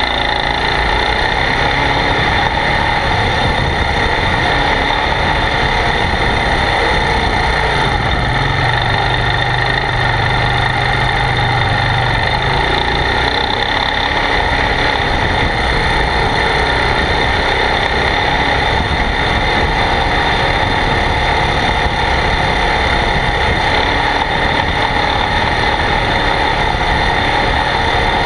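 ATV engine running while riding along a dirt trail. The sound is loud and steady, with no pauses, and a held low engine note about 8 to 12 seconds in.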